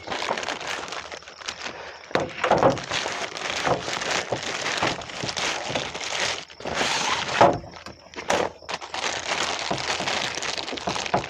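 Packaging being handled: irregular rustling and crinkling with a few knocks and thunks.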